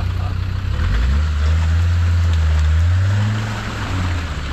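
Land Rover Discovery Td5's five-cylinder turbodiesel engine working under load as the truck climbs out of a muddy rut. It gets louder about a second in and revs up briefly around three seconds.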